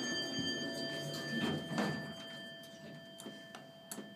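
A Westinghouse hydraulic elevator's bell, the 'dinner bell', ringing out and fading after a single stroke, while the elevator door slides closed. A few light clicks near the end as the door-close button is pressed.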